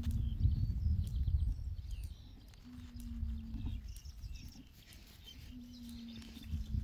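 A month-old foal lying on its side makes a low, flat groan about a second long with each breath, three times, roughly every three seconds. Low rumbling noise on the microphone fills the first two seconds.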